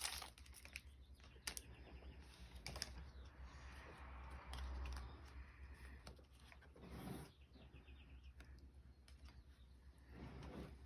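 Faint clicks, taps and soft rustling of a stack of Pokémon trading cards being handled and flipped through.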